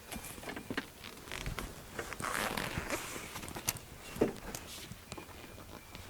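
Retractable ratchet strap being worked: a zipper-like rasp of webbing and the ratchet mechanism, with a run of clicks and two sharper clicks past the middle.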